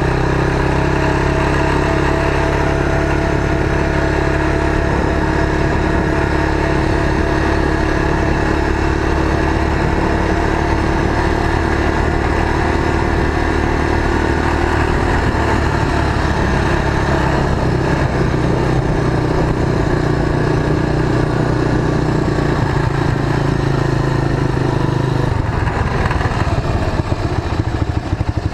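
Motorcycle trike engine running steadily as it rides along, dropping to a slow, pulsing idle near the end.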